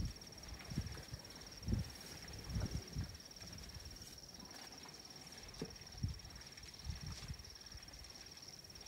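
An insect, cricket-like, trilling steadily at one high pitch, with a few soft low thumps scattered through.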